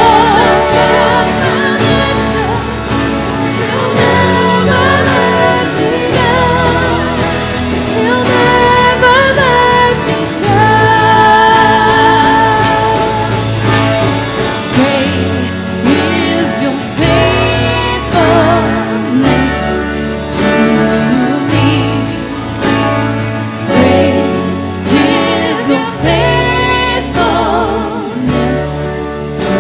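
Contemporary worship song: voices singing over a band, with a steady, repeating bass underneath.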